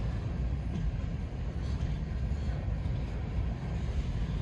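Covered grain hopper cars of a freight train loaded with canola rolling past: a steady low rumble of steel wheels on the rails.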